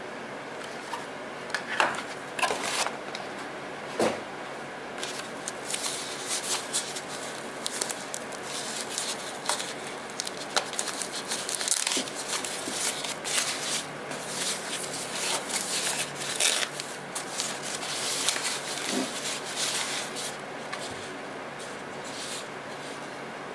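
Thin white packing wrap crinkling and rustling as it is unfolded from around a small camera, a dense run of crackles from about five seconds in until near the end. A few sharp clicks and knocks from handling the power adapter and its cable come first, over a steady background hiss.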